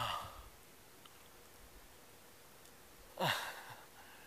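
A man sighing twice while eating strawberries: breathy exhales, one at the start and one about three seconds in, each falling in pitch.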